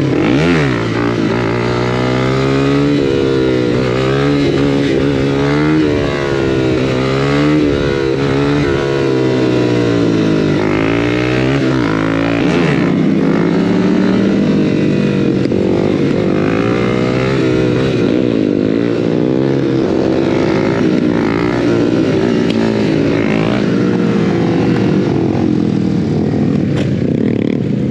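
Motorcycle engines on the move, the nearest one's note repeatedly rising and falling as it accelerates, shifts and eases off, with other bikes running alongside and wind rushing past.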